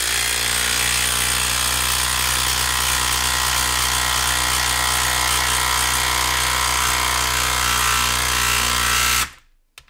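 A Makita 1/4-inch hex cordless impact driver hammering steadily as it drives a 4-inch screw into a damp log, with the wet wood's friction holding it under heavy load. It stops about nine seconds in, and a short blip of the tool follows near the end.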